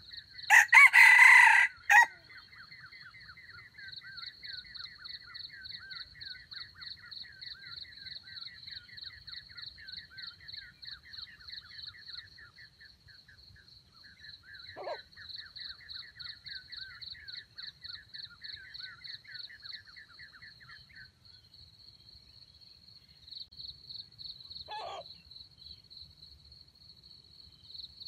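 Red junglefowl rooster crowing once, a short crow about half a second in that breaks off abruptly. Insects keep up a steady pulsing chirp and a faster trill behind it. Two brief low clucks come later.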